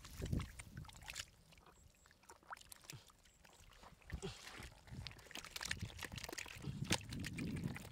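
Thick wet mud squelching and sloshing as hands scoop through it and a plastic basket of mud and catfish is dragged and lifted, with scattered clicks and splatters.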